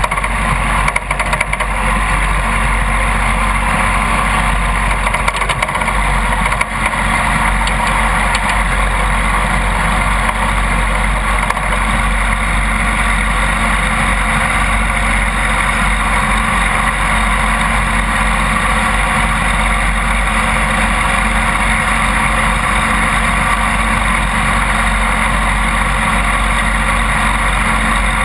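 Riding lawn mower engine running steadily while the mower drives along a paved road.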